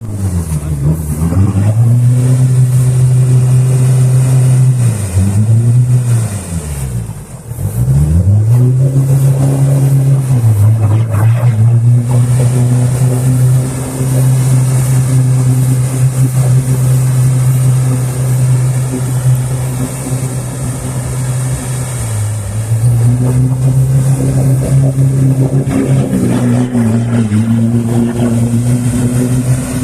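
Off-road 4x4 engine revving hard. The revs drop and climb again several times in the first eight seconds, then are held high, with a brief dip a little past two-thirds of the way through.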